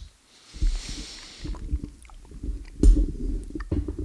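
Close-miked mouth sounds of someone sucking and chewing a hard candy: a low, uneven rumble with many small clicks of candy against teeth, and a soft hiss near the start.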